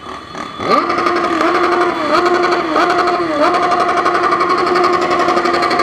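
Honda CB1000 motorcycle engine revved up sharply about half a second in and held at high rpm, dipping briefly three times, then starting to drop near the end. A steady high whine runs underneath throughout.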